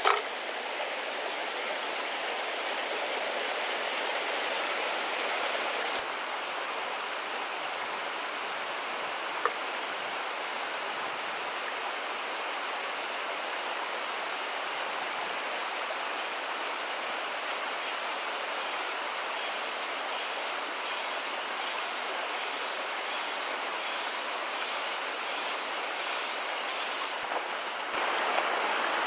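Shallow stream running over rock cascades: a steady rushing hiss of water. From about halfway, a faint high-pitched pulsing repeats about one and a half times a second over the water.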